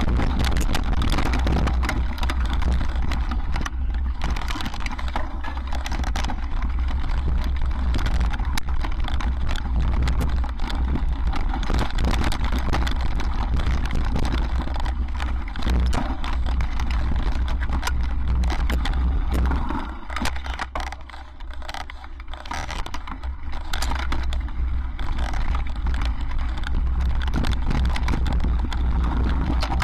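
Mountain bike rolling fast over a rocky, then dirt, trail: tyres crunching on stones and the bike rattling and knocking over bumps, under a heavy wind rumble on the camera's microphone. It goes quieter for a couple of seconds about two-thirds of the way through.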